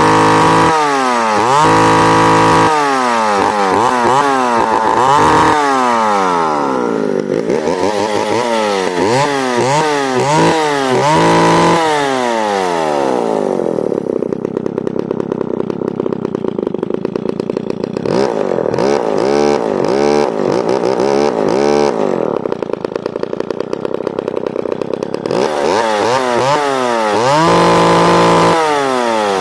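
McCulloch Pro Mac 1010 chainsaw's two-stroke engine being revved again and again, the pitch climbing and falling with each blip of the throttle and held at full revs a couple of times. Around the middle it drops to a lower, rougher running with smaller rises for about ten seconds, then is revved up high again near the end.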